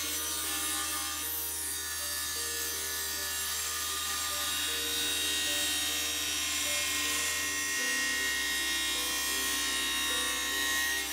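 Table saw running as it rips a thick solid oak plank, mixed with background music playing a slow melody.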